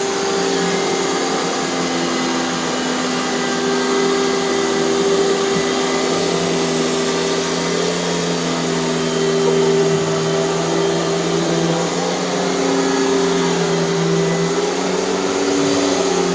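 Hoover canister vacuum cleaner running steadily, its motor hum shifting slightly in pitch now and then over a constant rush of air.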